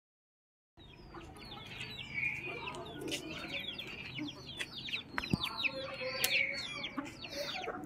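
A flock of country chickens: chicks peeping over and over in short falling chirps, with hens clucking beneath them. Starts about a second in.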